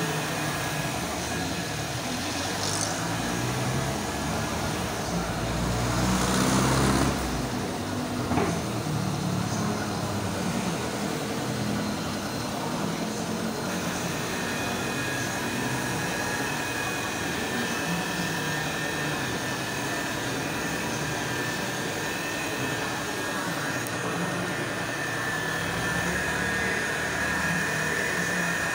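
Electric rotary polisher with a foam pad running steadily as it buffs wax on a car roof, a motor whine whose pitch shifts about halfway through. A louder rushing noise swells around six seconds in and cuts off about a second later.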